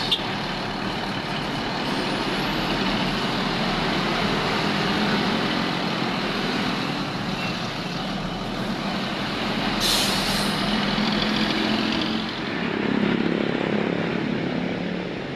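Steady road noise from buses and traffic close by. About ten seconds in, a bus's air brakes give a short, sharp hiss.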